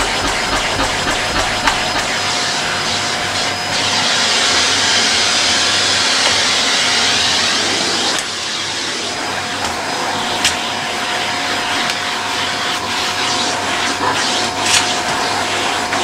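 Bagless cylinder vacuum cleaner running steadily, its hose tool drawn over stair carpet, with a steady motor whine. The airflow hiss grows louder and higher for a few seconds around the middle. A couple of sharp knocks come in the second half.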